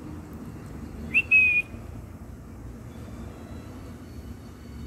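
A person whistles once to a puppy: a short whistle about a second in that glides up briefly, then holds one pitch for about half a second, over a faint steady background hum.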